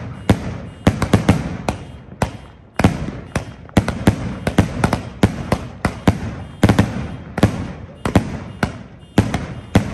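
A 66-shot 'Rooster Rules' consumer firework cake firing its shots in quick succession: a steady run of sharp bangs, about two or three a second, each trailing off.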